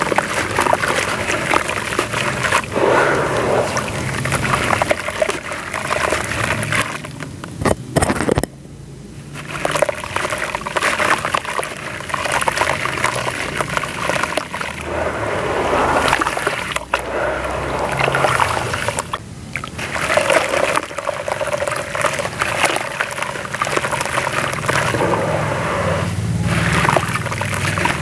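Lumps of dry sandy crumble mix being squeezed and crumbled by hand into a tub of water: gritty pieces splash, pour and trickle into the water, with a short pause about a third of the way in.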